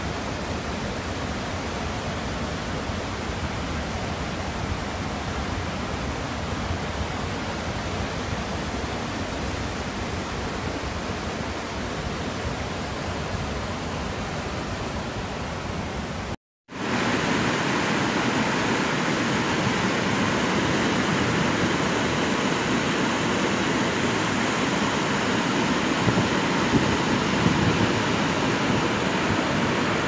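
River water rushing over rocks at a waterfall, a steady rush of water. It cuts out for a split second about halfway through, then comes back louder.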